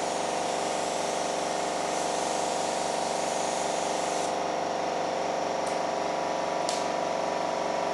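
Air-fed paint spray gun hissing as it sprays, stopping a little over four seconds in, over a steady machine hum from the spray rig. Two light clicks near the end.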